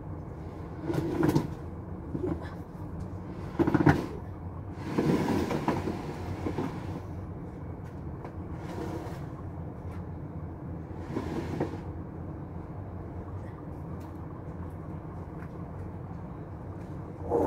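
Steady low rumble with a few dull knocks in the first four seconds, then a longer rustling scrape around five to six seconds and fainter rustles later: things being handled close to a phone lying on a cloth.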